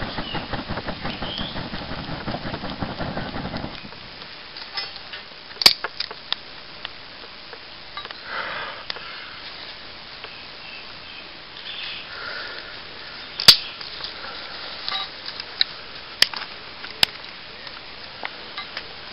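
Small twig-and-leaf tinder fire crackling as the flame takes, with a few sharp snaps. A fast rustling patter fills the first few seconds, then dies away.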